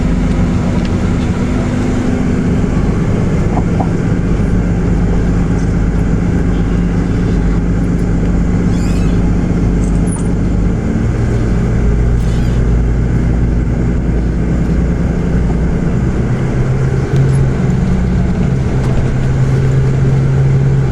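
Inside a moving tour bus: steady engine hum and road noise. The engine note shifts about halfway through and again near the end.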